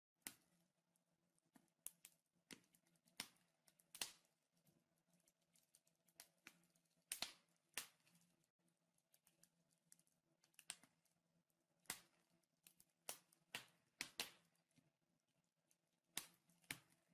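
Wood fire crackling faintly in a fireplace: sparse, irregular pops and snaps from the burning logs over a faint low hum.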